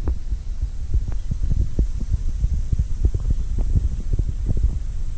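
Wind buffeting an open-air camera microphone: a steady low rumble broken by many irregular gusty bumps.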